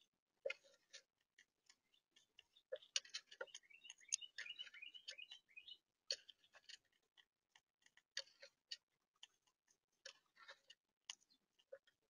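Faint, irregular clicks and ticks from a gray squirrel feeding close to the microphone. About three seconds in, a bird gives a short, rapid run of chirps lasting a few seconds.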